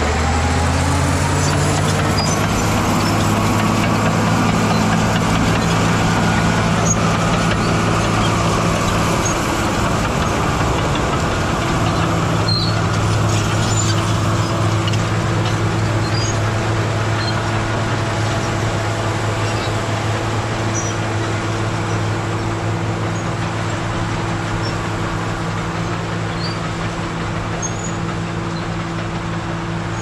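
CAT D7G bulldozer's diesel engine running under throttle: it revs up over the first few seconds, then holds a steady, loud drone.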